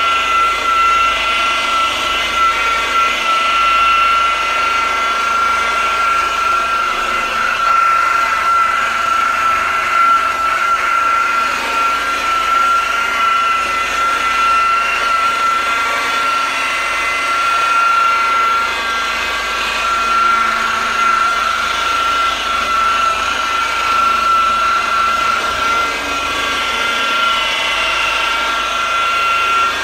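An electric power tool running steadily at constant speed, with a high, even whine.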